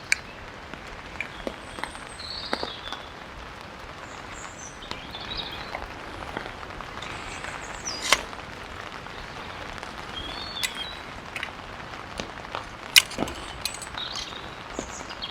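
Sharp metal clicks and clinks of a lightweight camping grill being put together by hand, scattered irregularly, two of them louder, about eight and thirteen seconds in. Rain makes a steady hiss underneath, with a few bird chirps.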